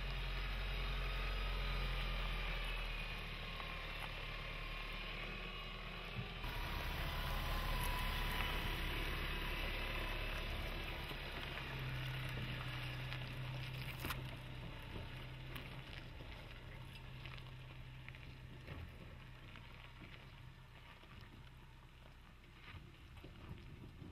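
Isuzu D-Max pickup's 1.9-litre common-rail diesel engine running as the truck drives slowly over rocky gravel off-road ground. It grows fainter over the last ten seconds.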